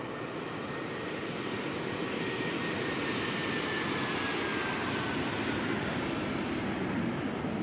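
Airplane engines passing by: a steady rush that slowly grows louder, with a high whine that falls gradually in pitch as the aircraft goes past.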